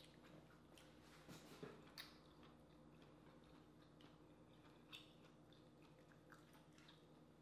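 Near silence: faint eating sounds as seafood is pulled apart by hand and chewed, with a few soft clicks and smacks about a second or two in and again near five seconds, over a steady low hum.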